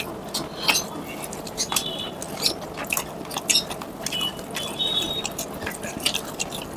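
Close-up eating sounds: wet squelching of fingers mixing rice into chicken curry, with chewing and lip smacks. Many short, sharp clicks and smacks come irregularly.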